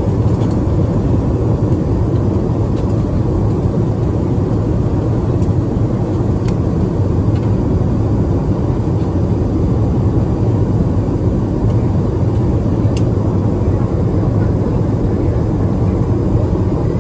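Steady low drone of a jet airliner cabin in flight.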